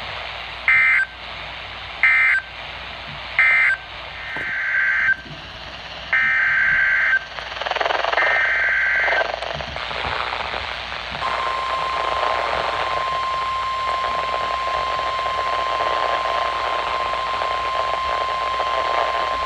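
Emergency Alert System broadcast over NOAA Weather Radio. Three short bursts of SAME data tones (the end-of-message code closing one warning) are followed by three longer SAME header bursts for the next warning. Then comes the steady 1050 Hz warning alarm tone, held for about nine seconds over radio static hiss.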